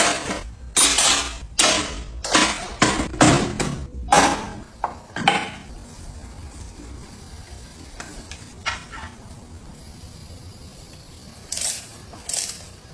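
Metal parts and hand tools clinking and knocking against each other, a quick run of sharp strikes for about five seconds, then quieter with a few scattered knocks and a short cluster near the end.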